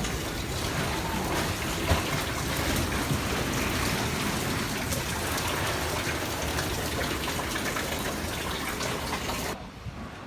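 Hurricane wind and heavy rain, a steady rushing noise with the wind buffeting the microphone. It cuts off abruptly near the end.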